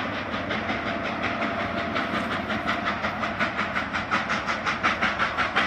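Steam locomotive pulling a train, its exhaust chuffing in an even rhythm of about five beats a second that grows louder as it approaches.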